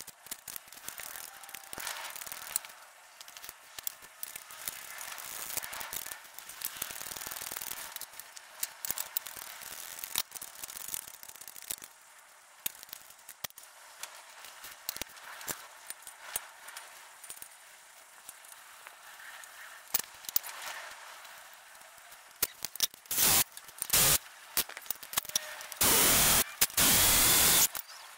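Small metallic clicks, scrapes and rattles of hand tools working the seized exhaust control valve pulley and its bushes. Several loud bursts of noise come near the end.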